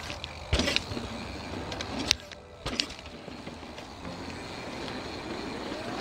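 Mountain bike ridden over a dirt trail: a steady rush of tyres and wind, broken by sharp clacks as the bike hits bumps about half a second, two seconds and near three seconds in, with a faint rising whine near the end.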